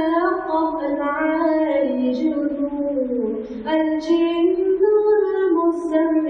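A single high voice singing a slow, unaccompanied melody with long held, gliding notes, chanting the names of the Quran's surahs in turn.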